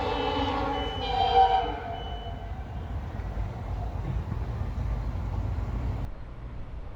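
Multi-tone ALCo-type air horn of an EMD WDG4 diesel locomotive sounding a chord that fades out about two seconds in. Then comes the low rumble of the express train running past at speed, which drops away abruptly about six seconds in.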